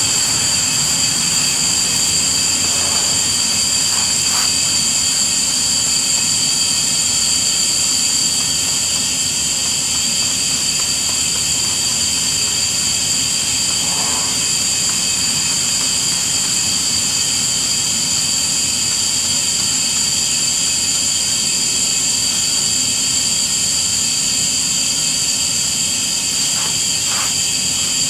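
Steady, high-pitched insect chorus that holds at one level throughout, with a faint low hum beneath it.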